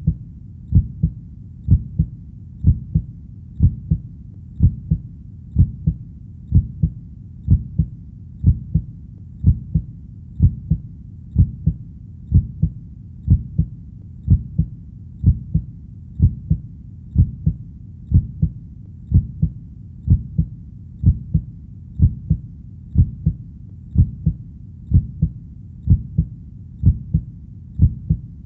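Steady heartbeat, a low double thump (lub-dub) about once a second, over a faint constant low rumble.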